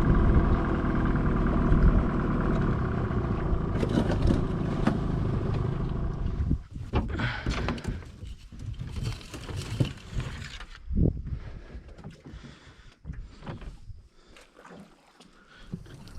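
A motor vehicle's engine idling steadily. It cuts off abruptly about six and a half seconds in, leaving scattered light knocks and rustling.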